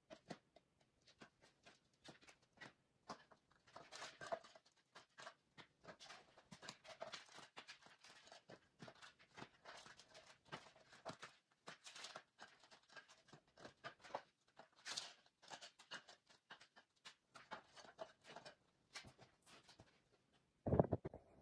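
Faint clicking, scraping and light clatter of thin DIY brick slabs being pried apart and dropped onto a pile, with a louder clatter near the end.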